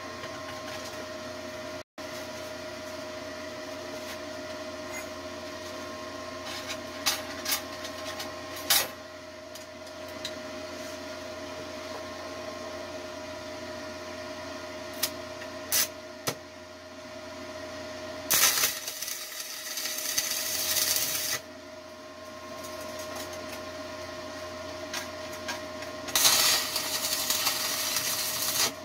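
Forney 100ST stick welder burning 3/32-inch 6013 rods at 75 amps to tack 1/8-inch steel plate: two stretches of arc noise, one of about three seconds past the middle and one through the last few seconds. Between them a steady hum runs, with a few sharp metal clicks and knocks as the plates are handled.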